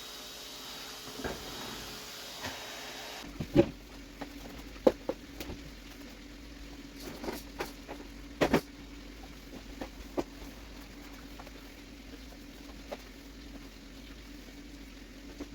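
Scattered sharp knocks and taps, like things being set down or handled, over a faint steady hum. The loudest knock comes about a third of the way in, and a close pair comes just past the middle.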